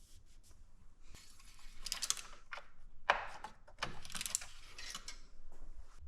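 Clicking, jingling and rustling of small things being handled inside a car cabin, in several short bursts with sharp clicks among them.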